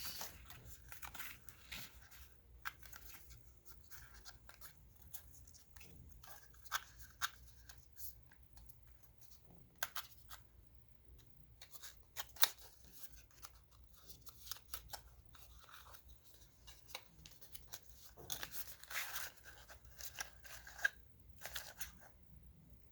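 Packaging handled while the accessories are unpacked from the box: rustling and crinkling of plastic and cardboard, with irregular sharp clicks and taps.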